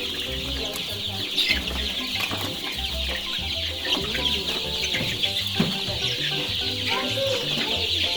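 A large flock of eight-week-old chickens calling all at once in a constant chorus of clucks and peeps.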